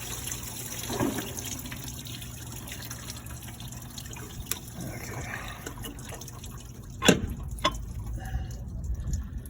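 Engine coolant pouring and dripping out of the water pump opening into a drain pan, the flow thinning near the end. A few sharp metallic knocks come through it, the loudest about seven seconds in.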